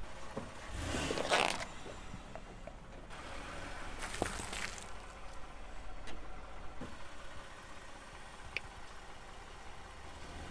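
A car's tyre rolling over and flattening packets of M&M's candy on asphalt, with two short crunching bursts, about a second in and again around four seconds in, over a car engine idling.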